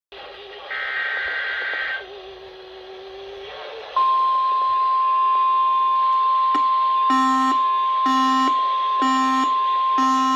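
Emergency Alert System tones from a broadcast: a short burst of SAME header data tones, then from about four seconds in the steady single-pitch NOAA Weather Radio warning alarm tone. Near seven seconds a buzzy electronic beep joins it, pulsing about once a second.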